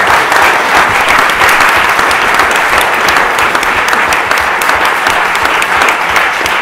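Audience applauding: loud, dense clapping that starts just before and eases a little toward the end.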